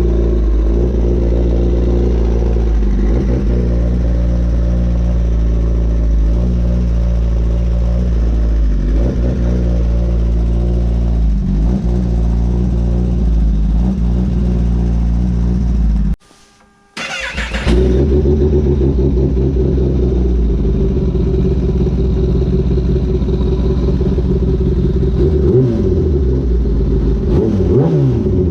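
A 2021 Kawasaki Ninja ZX-10R's inline-four engine running steadily just after a cold start. About sixteen seconds in, the sound cuts out for under a second with a brief noisy burst, and the engine is then heard running again.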